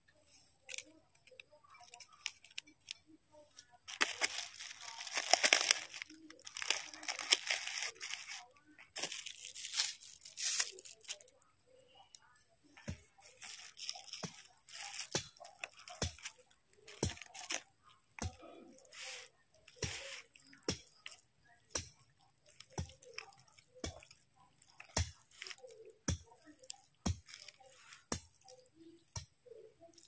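Rustling and tearing for several seconds, then close chewing of stir-fried noodles with soft mouth clicks about once a second.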